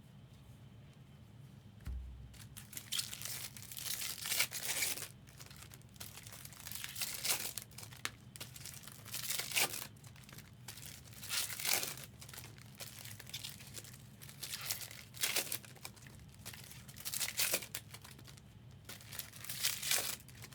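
Foil trading-card packs being torn open and their wrappers crinkled, in short bursts every couple of seconds, with a dull thump about two seconds in.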